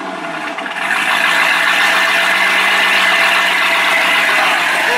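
2007 Corvette Z06's 7.0-litre LS7 V8 idling through a Corsa Extreme axle-back exhaust and H-pipe, warming up after a cold start. A steady low note that gets louder about a second in and then holds.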